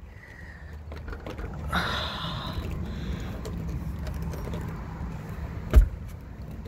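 A low steady rumble, with a noisier swell about two seconds in; near the end a single sharp thump as a locked exterior door is tried by its knob.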